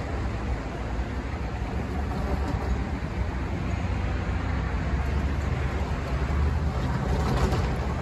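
Road traffic passing: cars and pickup trucks driving by, a steady low rumble with a little tyre hiss near the end.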